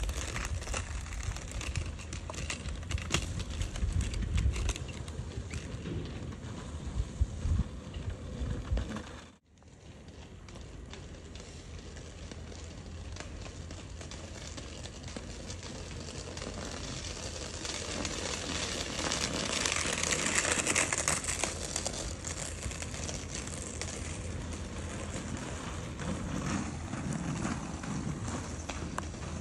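Inline skate wheels rolling over rough asphalt, a steady gritty rumble with wind on the microphone. It breaks off for a moment about a third of the way in and swells to a louder hiss around two-thirds of the way through.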